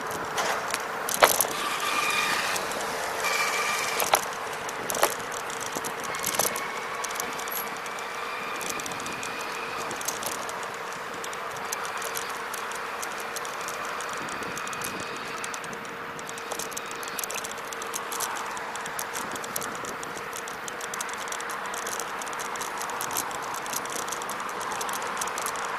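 Xplorer Ambassador electric scooter ridden over pavement: its frame and handlebar rattle and click over the bumps, with a few sharper knocks in the first five seconds. A steady faint whine and passing road traffic run underneath.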